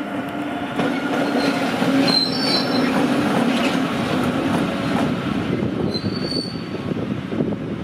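Rhaetian Railway Ge 4/4 III electric locomotive rolling slowly past on shunting moves, its running gear giving a steady low hum. Its wheels squeal briefly on the rails about two seconds in and again about six seconds in.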